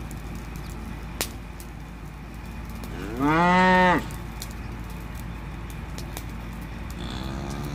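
A calf moos: one loud call that rises and falls in pitch about three seconds in, and a second, fainter moo starting near the end. Faint scattered clicks and a steady low hum lie underneath.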